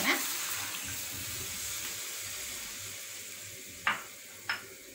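Water poured into a hot pan of masala-fried mushrooms hisses and sizzles, the sizzle fading over a few seconds. Two sharp clicks come close together about four seconds in.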